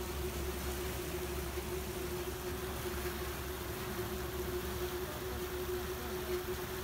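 A boat's engine running steadily: a constant low hum with one held mid-pitched tone over an even hiss.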